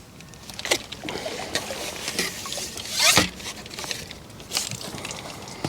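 Carbon fishing pole being handled and unshipped: a few sharp clicks and knocks, with a louder brief scuffing burst about three seconds in.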